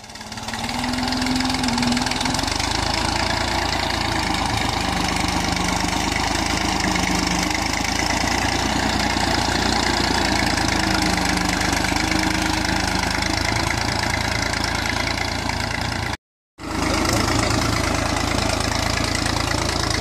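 Farm tractor's diesel engine running steadily as it pulls a tine cultivator through the soil. The sound cuts out for a split second near the end.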